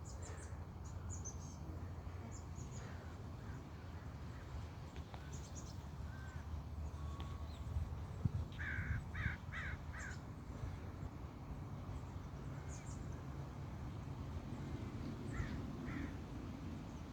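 Bird calls outdoors: a quick run of four or five calls about halfway through and two more near the end, over a steady low rumble.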